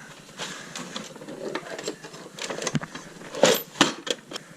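Irregular clicks, taps and rustles of hands handling parts and tools at a car door, with the loudest knock about three and a half seconds in.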